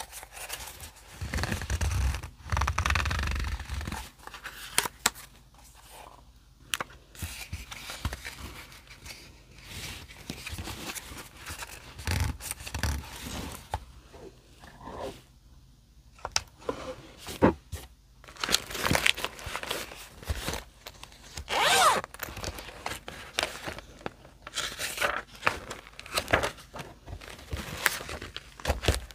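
Close-up paper handling: a small memo pad being opened and its sheets rustled, torn and slid, with irregular scrapes and sharp taps of paper on the desk.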